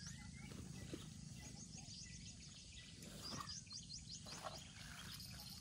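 Quiet outdoor ambience: a bird gives two quick runs of high chirps over a low steady rumble, with a few faint knocks.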